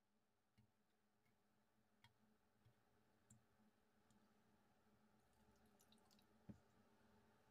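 Near silence: faint room tone with a few soft, scattered ticks.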